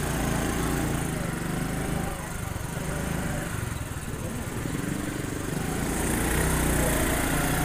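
Motorcycle engine running as it rides along, easing off about two seconds in and pulling harder again about six seconds in.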